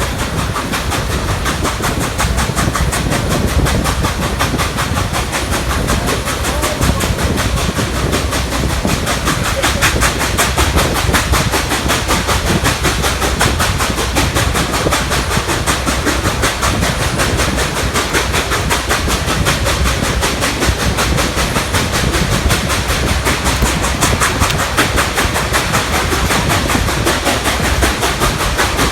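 Nickel Plate Road 765, a 2-8-4 Berkshire steam locomotive, working hard up a steep grade, its exhaust beats coming quickly and evenly over the rumble of the train.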